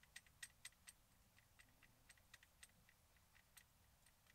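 Near silence with faint, irregular light ticks, a few a second.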